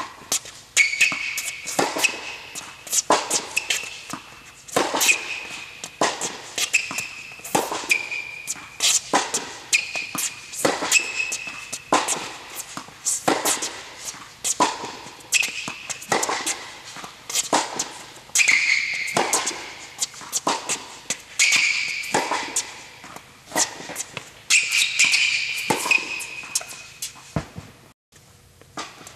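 Tennis rally on an indoor hard court: a steady run of sharp pops from the ball being struck by rackets and bouncing, with short high squeaks from sneakers as the players move and stop. It breaks off briefly near the end.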